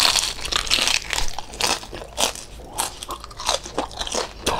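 Close-miked crunching and chewing of crispy lechon kawali (deep-fried pork belly): a run of short, irregular crunches as the crackling skin is bitten and chewed.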